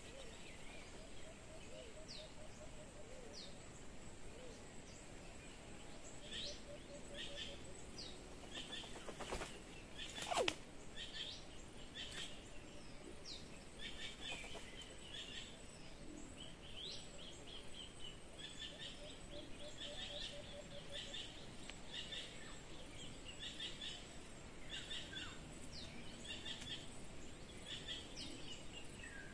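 Wild forest birds calling: many short repeated chirps and rapid trills throughout, with a lower pulsed call now and then. One loud, brief falling sound about ten seconds in.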